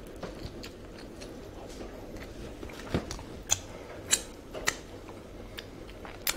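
Close-miked mouth sounds from chewing a fried chicken wing that has a shattered bone in it. Fingers pick at the mouth, and several sharp clicks come mostly in the second half.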